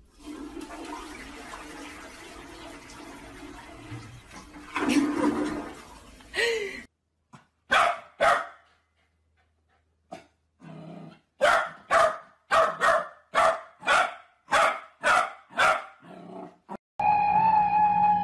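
A toilet flushing, a rush of water that stops abruptly about seven seconds in. Then a corgi puppy barking: two barks, a pause, and a run of about eight barks at roughly two a second.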